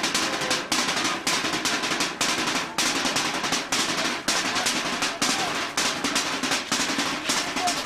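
Fast snare drumming: rapid rolls broken by louder accented strokes about twice a second.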